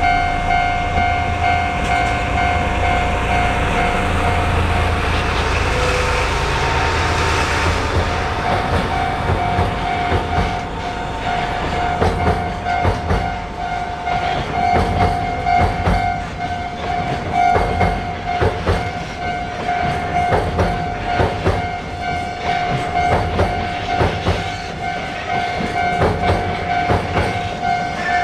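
A railway level-crossing alarm rings with a steady, repeated tone as a train passes over the crossing. The train's rumble swells a few seconds in, then its wheels clatter over the rail joints.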